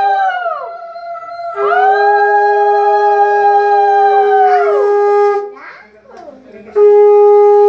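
Conch shells (shankha) blown in long, loud, steady blasts, two at once at times, each tailing off with a downward slide in pitch. The conch is blown as the auspicious call in a Hindu wedding rite. Voices are heard between blasts.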